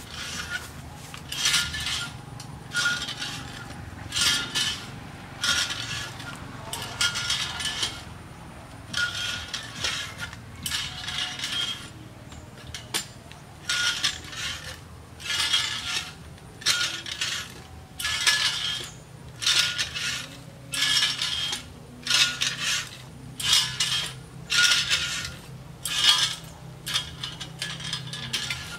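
Metal coconut-climbing ladder clanking and rattling in a steady stepping rhythm, about one clatter a second. Each step down slides a pedal along the frame and tightens or slackens the gripping cable around the palm trunk, with a short ringing metallic note.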